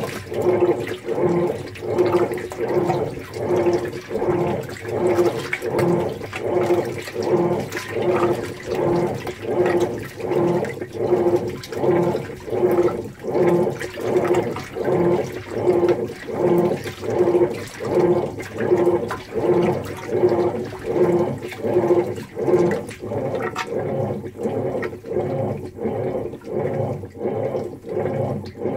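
Whirlpool Cabrio top-load washer agitating a deep-water wash: water and clothes slosh around the tub in regular surges, a little more than one a second, over a steady motor hum. The surges grow a little softer near the end.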